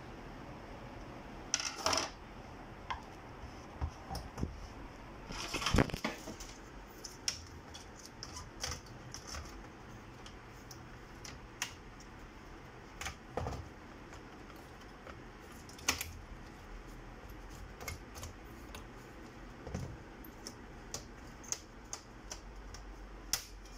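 Irregular clicks and light knocks of plastic casing and metal parts being handled and fitted together as an HP 400 G2 all-in-one PC is closed up, with louder clatters about two and six seconds in.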